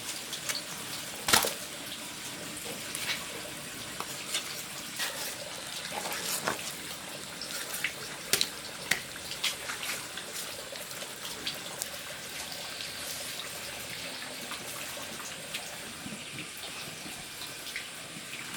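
Water running and splashing, with scattered clicks and knocks; one sharp knock, the loudest, comes about a second and a half in.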